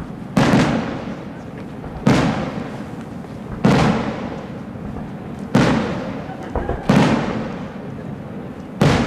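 Aerial firework shells bursting overhead: six loud bangs about one and a half to two seconds apart, each trailing off in a rumbling echo that dies away over about a second.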